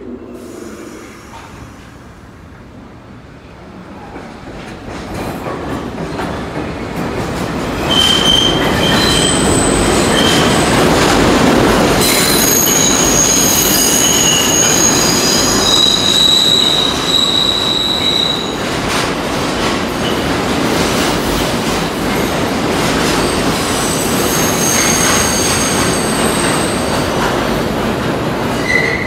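New York City Subway 6 train departing and passing close by, its rumble building over the first several seconds. From about eight seconds in, the wheels squeal in high, steady tones on the curved track, easing off and then returning briefly near the end.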